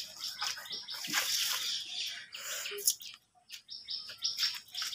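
Small birds chirping in quick runs of short high notes, several a second, breaking off about three seconds in and starting again shortly after.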